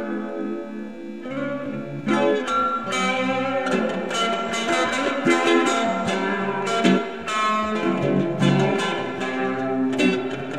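Live band playing an instrumental passage with no vocals: guitars strumming over a bass guitar line, with frequent sharp strokes.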